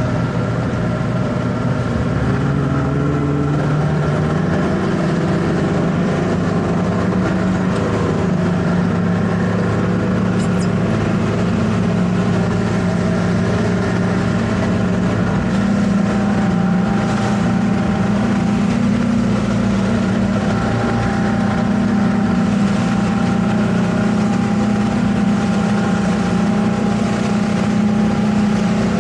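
Center-console towboat's outboard engine running steadily over a hiss of wind and water. The engine speeds up slightly between about two and four seconds in, then holds an even pitch.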